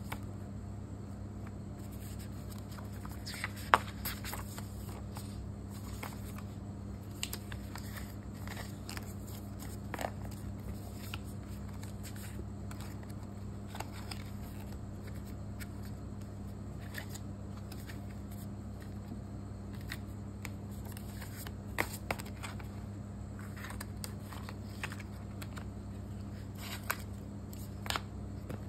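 Paper and packaging handling: rustles, light taps and clicks as a printed booklet's pages are flipped and a paper sleeve and coiled cable are moved about, with the sharpest click about four seconds in and a few more near the end. A steady low hum runs underneath.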